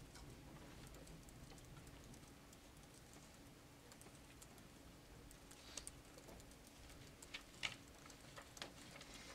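Near silence: room tone with a steady low hum, and a few faint scattered clicks and taps in the second half.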